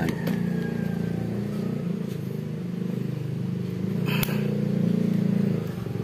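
A motor or engine running steadily with a low, even hum, with one sharp click about four seconds in.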